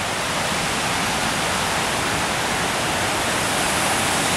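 Steady rushing of a forest waterfall on Panther Creek, a dense even roar of falling water growing slightly louder.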